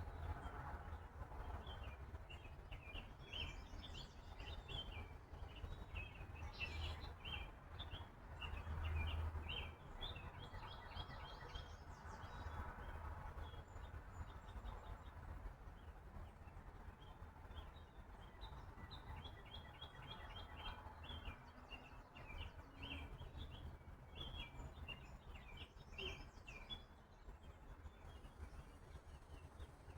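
A bird chirping in quick runs of short high notes: a long run, a pause, then a second long run. A faint steady low hum lies underneath.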